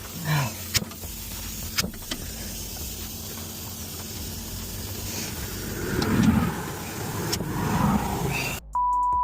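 Steady highway traffic noise with a few sharp clicks and a louder passing swell. Near the end the sound cuts out to a single steady beep tone, a censor bleep.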